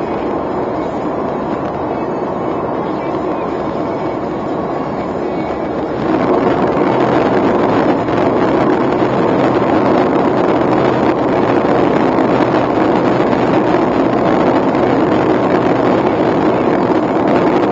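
Steady road and engine noise heard inside the cabin of a Suzuki Alto, a 660 cc naturally aspirated three-cylinder with CVT, cruising at expressway speed. The noise gets louder about six seconds in and stays at that level.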